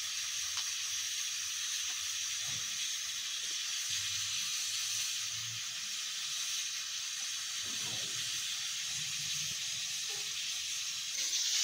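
Steady hiss of steam escaping from a pressure cooker at pressure.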